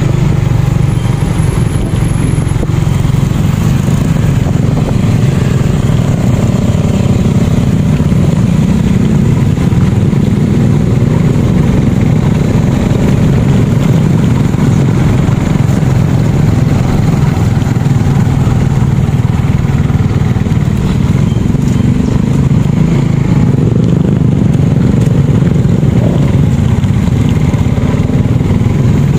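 Motorcycle riding along at a steady pace, heard from on the bike: a continuous engine and road noise with no changes in speed.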